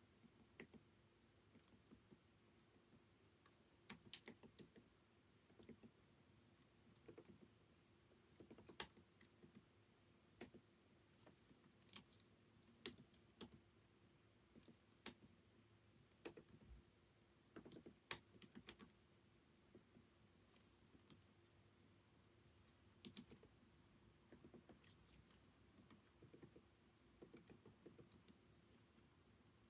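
Faint typing on a computer keyboard: irregular runs of keystrokes broken by short pauses, with a few louder single key strikes.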